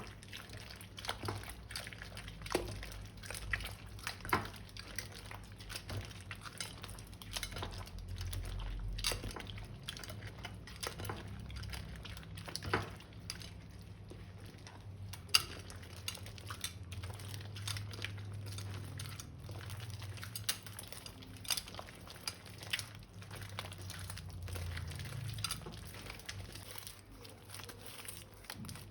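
Slime being mixed by hand: scattered sharp clicks and taps of tools and containers against a bowl, a few a second at most, over a soft low rumble.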